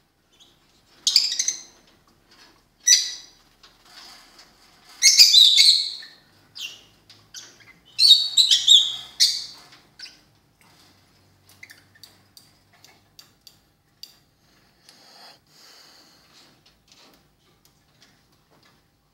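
High-pitched chirping squeaks in four loud bursts over the first ten seconds, each lasting up to about a second and a half, followed by fainter scattered chirps and clicks.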